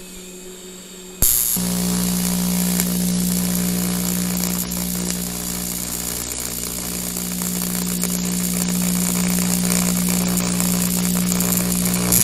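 AC TIG welding arc on a cast aluminium clutch housing, run from an AC buzz-box welder with an add-on high-frequency box. About a second in, the arc strikes with a burst of high-frequency crackle, then buzzes steadily with a hiss over it, and cuts off at the end.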